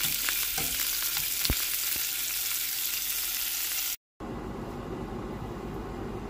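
Hot dogs sizzling in oil in a nonstick frying pan on a gas burner, a steady hiss with small pops and crackles. About four seconds in, a sudden cut gives way to a steady low hum.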